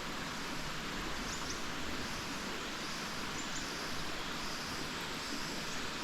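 Steady rush of falling and running water from a waterfall, with a few short, high chirps about a second in and again near the middle.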